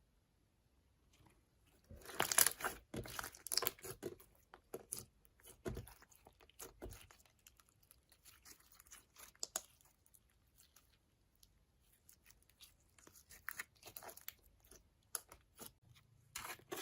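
Slime and makeup being worked by hand, making irregular crackling, crunching and tearing sounds. The crackles are densest and loudest a couple of seconds in, then come in scattered spells, with a last short burst near the end.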